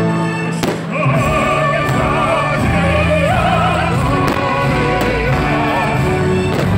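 A singer in operatic style, with wide vibrato, comes in about a second in over an orchestral accompaniment with a deep bass. Two sharp cracks cut through, one shortly after the start and one near the end.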